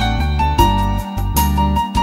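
Instrumental background music: a melody of held notes over a changing bass line with a steady beat.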